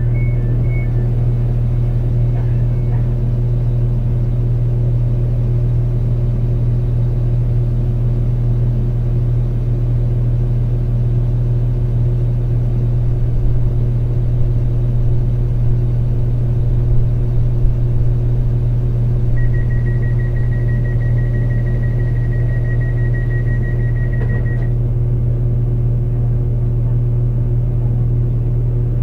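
The underfloor diesel engine of a Class 197 diesel multiple unit, heard from inside the carriage, running at a steady speed as a constant low drone. Alternating two-tone electronic beeps sound in the first second. Past the middle a steady high electronic tone sounds for about five seconds and then cuts off.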